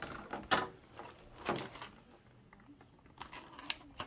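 Doll box packaging being handled as the doll is worked free of her retaining straps: a few short, sharp crackles and clicks of plastic and cardboard, the loudest about a second and a half in.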